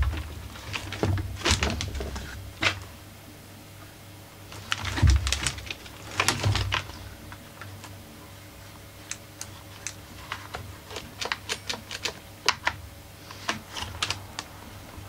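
Plastic casing and parts of a small portable inverter generator being handled during disassembly: irregular clicks and knocks, with a loud clatter in the first few seconds and again around the middle, then a run of quick, light ticks in the second half.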